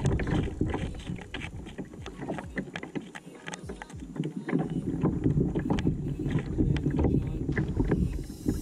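A fishing reel cranked against a hooked shark, with many irregular sharp clicks and rattles. Under them runs a fluctuating rumble of wind on the microphone.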